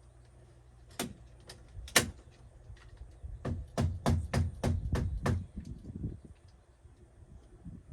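Hammer blows on wood: three separate knocks, then a quick even run of about seven strikes, roughly three a second.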